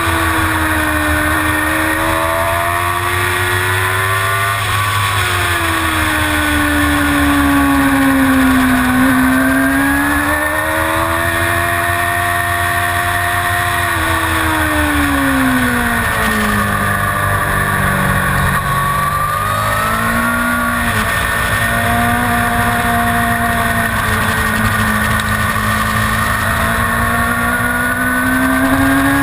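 Suzuki GSX-R750 inline-four engine at racing revs, its pitch climbing and falling repeatedly as the rider accelerates, shifts and brakes for corners, over a steady rush of wind noise.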